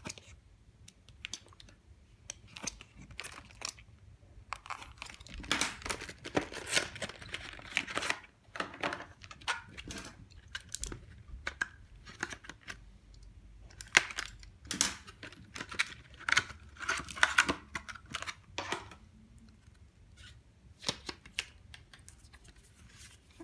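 Trading-card deck packaging being opened by hand: the cardboard box cut with a box cutter and the cellophane wrap torn off the card stack, making irregular crinkling, tearing and clicking. The handling is busiest in two stretches, about a quarter of the way in and again past the middle.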